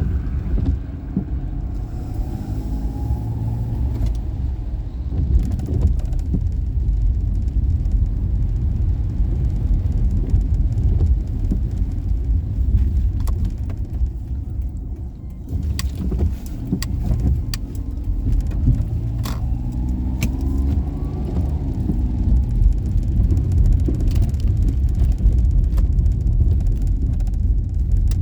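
Daihatsu Esse's 658 cc three-cylinder engine and road noise while driving: a steady low rumble. The engine note rises as the car accelerates a couple of seconds in and again about two-thirds of the way through, with scattered light clicks and rattles.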